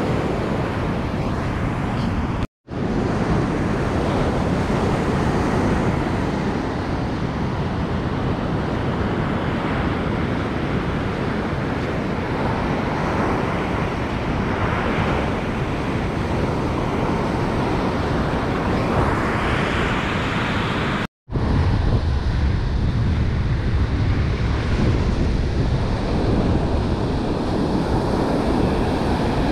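Ocean surf breaking and washing up the sand, a steady wash with waves swelling now and then, and wind rumbling on the microphone. The sound drops out abruptly twice for a moment.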